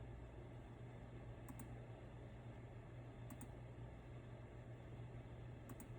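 Faint clicking at a computer: three quick double clicks about two seconds apart, over a steady low hum.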